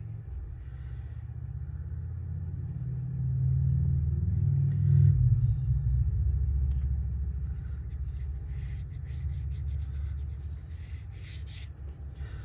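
A low, steady rumble that swells over the first five seconds or so and then slowly fades, with a few faint scratchy strokes in the second half.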